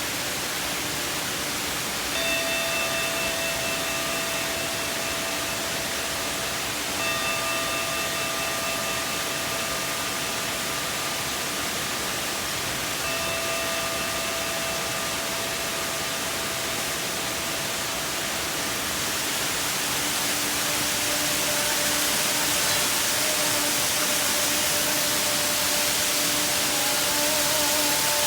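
Singing Ring, a Japanese singing-bowl instrument, struck three times, about 2, 7 and 13 seconds in, each note ringing on for several seconds over the steady rush of a large waterfall. Toward the end a lower held tone grows louder as the waterfall's rush also swells.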